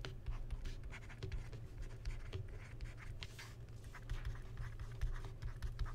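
Stylus writing on a tablet: a run of short clicks and scrapes as words are handwritten, over a low steady hum.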